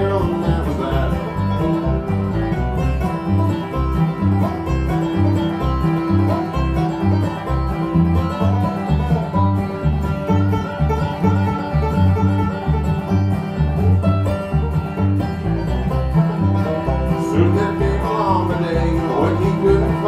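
Live bluegrass instrumental break: a banjo picking a fast lead over an acoustic guitar keeping a steady rhythm.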